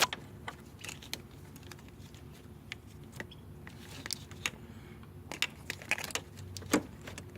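Irregular light clicks and metallic taps of hand tools and parts being handled while a replacement alternator is bolted into the engine bay, thicker in the second half.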